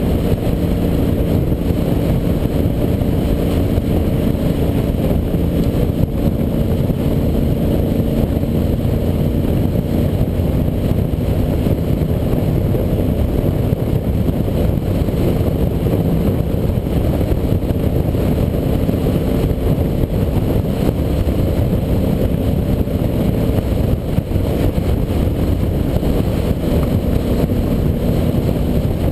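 Ducati Monster 800's air-cooled L-twin engine running steadily at cruising speed on the open road, mixed with a low rumble of wind over the camera's microphone.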